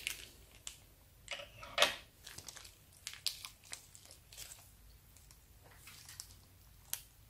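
Zip-lock plastic bag filled with slime being squeezed in the hands: irregular crinkling of the plastic and soft crackles and snaps, the loudest about two seconds in.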